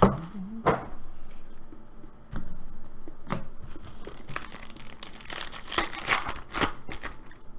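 Foil trading-card pack crinkling and being torn open by hand: irregular crackles and rustles, thickest in the second half.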